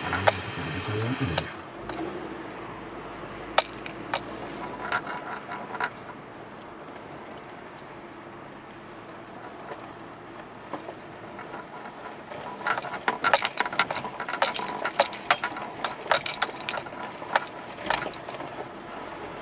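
Car driving slowly over a rough, stony dirt track, heard from inside the cabin: a steady low running noise with scattered clicks, then a dense run of sharp clinks and rattles from about twelve seconds in until near the end as the car jolts over stones.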